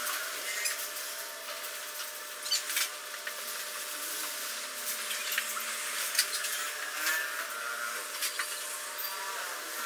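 Scattered light knocks and clanks from a metal pipe scaffold as a worker climbs it, over a steady hiss of room noise.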